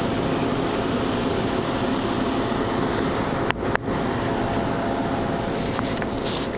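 Steady outdoor city background noise at night: an even hiss with a faint low machine hum. Two brief clicks come a little after halfway.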